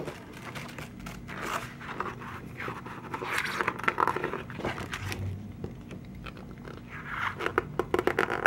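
Glossy pages of a large photobook being handled and turned: paper rustling and sliding in irregular crackly spells, the second one near the end.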